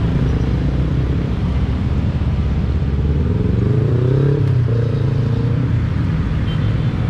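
Traffic of motorcycles and cars pulling away from a level crossing: a steady low engine rumble, with engines revving up and down about halfway through.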